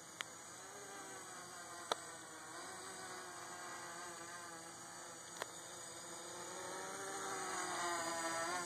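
Hobby King hexacopter's six electric motors and propellers buzzing in flight, the pitch wavering as the throttle changes and growing louder near the end. Three short sharp clicks stand out over the buzz.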